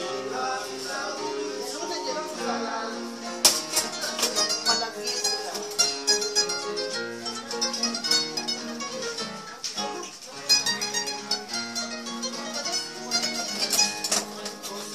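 Several acoustic guitars playing live together, strummed chords under a plucked melody in a steady rhythm.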